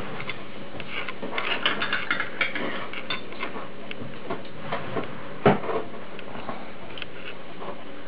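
Hot oil in an electric deep fryer crackling over apple pieces, with small metallic clinks from the wire frying basket and one louder knock about halfway through.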